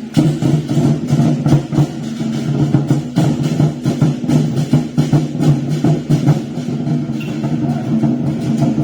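Temple festival music: drums and wood-block-like percussion beating rapidly and densely over steady sustained pitched tones.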